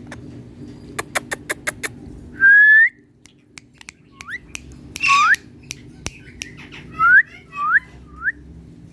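Indian ringneck parrot vocalizing: a quick run of about five sharp clicks, then a loud, held rising whistle, followed by several short upward-sliding calls.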